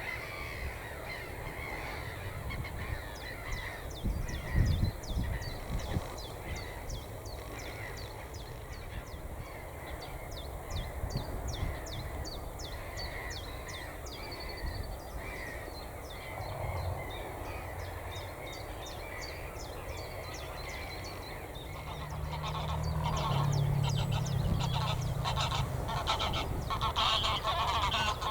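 Geese honking, the calling growing louder and denser in the last several seconds, with a fast, even high ticking running through.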